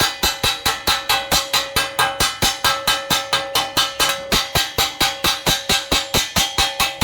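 A hammer striking steel pipe rapidly and evenly, about five or six blows a second. Each blow rings like struck metal.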